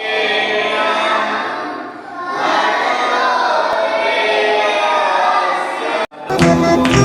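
Many voices singing together like a choir. The singing breaks off suddenly about six seconds in, and instrumental music with a steady beat starts.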